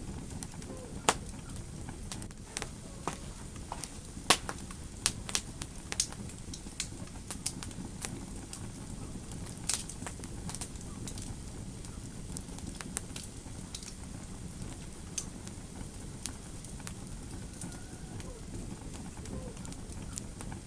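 Fire burning in a fireplace: irregular sharp crackles and pops of varying loudness over a low, steady rumble. The pops come thickest in the first half, with the loudest about a second in and again about four seconds in.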